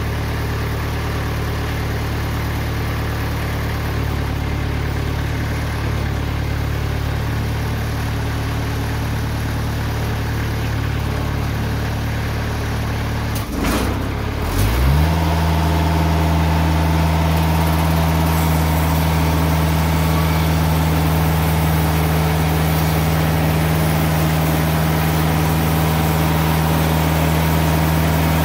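Engine of a TimberKing 2020 portable band sawmill running steadily. About halfway through, its pitch dips and then climbs as it is brought up to a higher, louder speed. It then runs steadily at that speed with a thin whine above it as the band blade works through the log.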